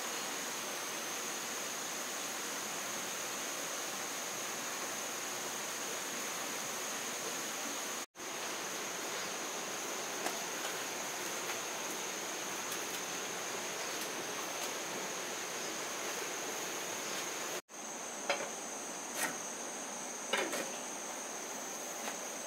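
Insects trilling in one steady high note over an even hiss, cutting out twice for an instant. A few short knocks near the end.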